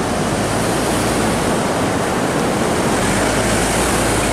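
Steady rush of ocean surf, with a GMC Canyon's four-cylinder turbo-diesel engine running low underneath as the pickup drives past.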